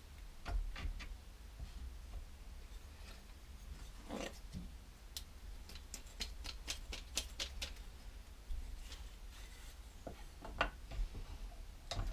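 Small woodworking clamps being fitted and tightened on wood: scattered sharp clicks and knocks, with a quick run of ticking clicks midway, over a low steady hum.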